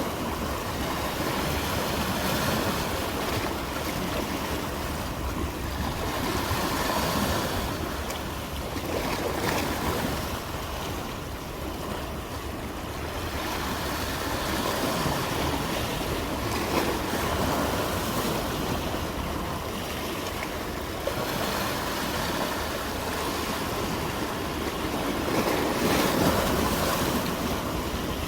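Ocean surf: waves breaking and washing continuously, swelling and easing every several seconds.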